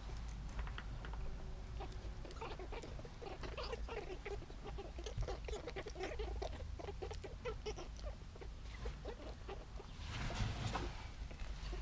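Newborn domestic rabbit kits squeaking, a rapid run of short, high little squeaks and ticks, with a rustle about ten seconds in.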